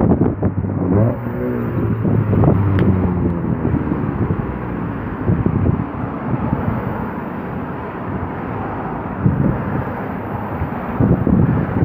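Freight train of multilevel autorack cars rolling by: a steady rumble and clatter of steel wheels on the rails, with a low drone for a couple of seconds near the start.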